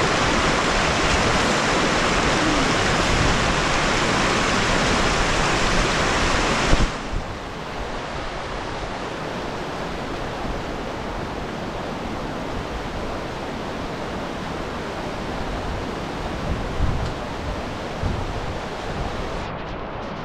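Kanarra Creek rushing over rocks and a small cascade close by, a loud, even rush of water. About seven seconds in it drops suddenly to a softer, more distant rush.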